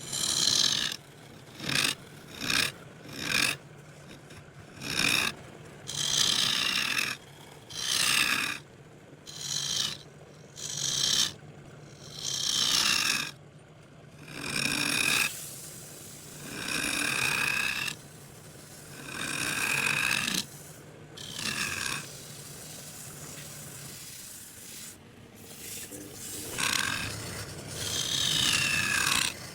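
Wood being worked by hand with a series of rasping, abrasive strokes: short quick strokes at first, then slower strokes about a second long, several with a falling scrape in pitch. A faint steady low hum runs underneath and stops about two-thirds of the way through.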